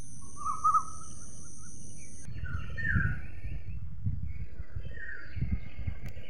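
Outdoor ambience of birds chirping. For the first two seconds a steady high insect drone runs under a brief chirp. Then the sound changes abruptly to an uneven low rumble with a short bird call about every two seconds.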